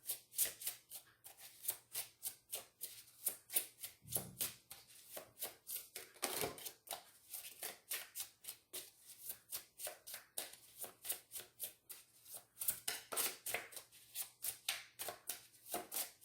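Oracle cards being shuffled by hand: a steady run of quick card slaps, about four a second, with a couple of duller knocks a few seconds in.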